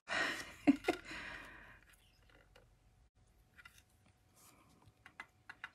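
Crafting handling sounds: embossing powder tipped off a paper strip held in tweezers into a metal catch tray, a soft hiss in the first second and a half, with a sharp click just under a second in and a few faint ticks near the end.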